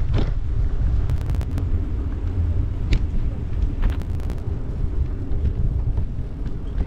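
Steady low wind rumble buffeting the microphone as it moves along, with a few sharp clicks in the first half.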